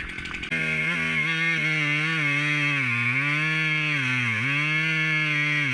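Chainsaw in an Alaskan chainsaw mill running at high revs through a cut, starting suddenly about half a second in; its pitch sags twice under load and picks back up.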